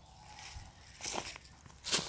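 Two brief rustling crunches, one about a second in and a louder one near the end.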